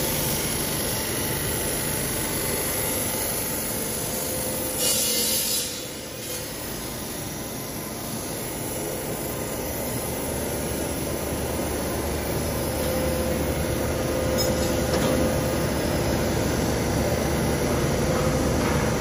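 Steel pipe-making tube mill line running: electric motors, forming rollers and polishing wheels working the pipe make a steady mechanical drone. About five seconds in a brief hissing burst rises over it, and in the second half a steady hum comes in and grows a little louder.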